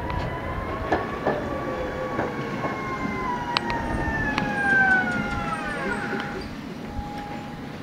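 Tatra K2P tram's TV Progress traction equipment singing as the tram brakes into a stop: a whine of several tones sliding slowly down in pitch, which drops away about six seconds in, leaving a single steady tone. A few sharp clicks from the wheels on the track come partway through.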